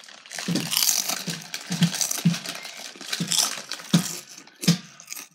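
Crunchy chips being chewed close to the microphone, with the bag crinkling: a series of about half a dozen irregular sharp crunches over a crackly rustle.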